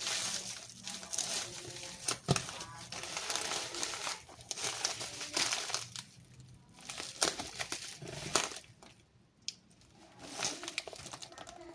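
Packaging crinkling and rustling in irregular bursts as a parcel is unpacked by hand, with a sharp crackle a couple of seconds in and a quieter pause near the end.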